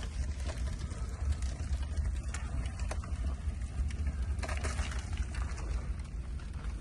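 Wood fire burning in the firebox of a newly built brick fireplace during its first drying burn, with a steady low rumble of air rushing up the flue and a few scattered crackles; the strong draft shows the chimney drawing well.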